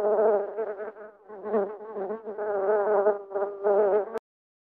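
Wasp buzzing in flight, its wing-beat hum wavering in pitch and swelling and fading, then cutting off abruptly with a click a little after four seconds.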